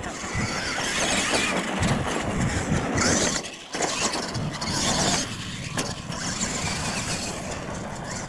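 Radio-controlled monster truck driving on a dirt track: its motor and gears whine as it speeds up and slows, with a brief lull about three and a half seconds in.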